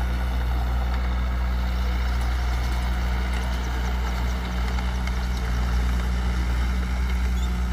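Heavy diesel engine of earth-moving machinery idling steadily with a low, even hum.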